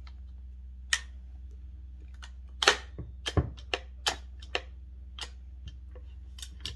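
Bosch CS10 circular saw's bevel adjustment being worked by hand: a string of sharp, irregular clicks and knocks, the loudest a little under three and three and a half seconds in.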